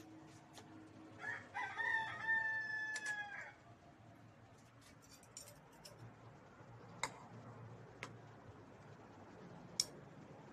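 A rooster crowing once: one long call of about two seconds, starting a little over a second in. Later come three sharp clicks, the last near the end as loud as the crow.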